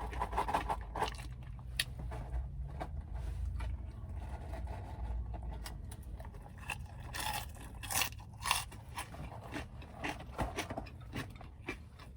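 Mouth crunching and chewing hot Cheetos (spicy cheese curls): a run of sharp, irregular crunches, loudest around eight seconds in, over a low steady hum.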